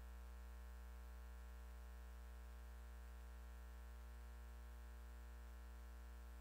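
Near silence: a steady low electrical hum with faint hiss, unchanging throughout, and no sound from the scene itself.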